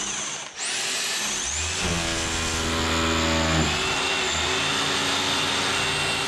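Power drill boring a hole, its motor running in two spells of about two seconds each, over the steady sound of a vacuum cleaner catching the dust.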